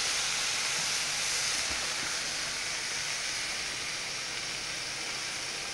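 Food sizzling on a barbecue grill: a steady hiss that fades slowly.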